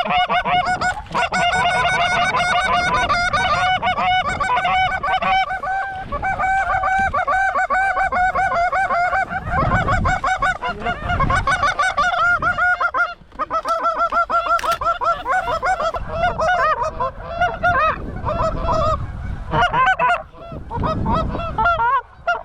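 Several goose calls blown rapidly and without pause, a dense stream of overlapping honks and clucks meant to draw incoming geese into the decoy spread.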